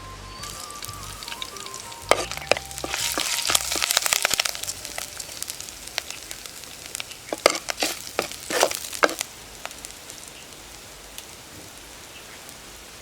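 Ingredients sizzling as they fry in a pot, with a spoon knocking and scraping against the pot in short flurries about two seconds in and again around seven to nine seconds in. Background music fades out within the first few seconds.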